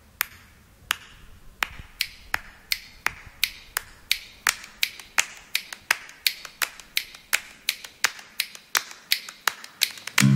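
A regular train of sharp clicks, slow at first, about two-thirds of a second apart, then quickening to about three a second. Guitar music starts in at the very end.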